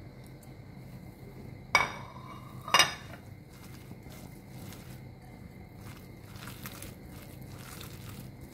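Two sharp clinks of ceramic dishes about a second apart, the first ringing briefly, then soft squelching of a food mixture being mashed by hand in a ceramic plate.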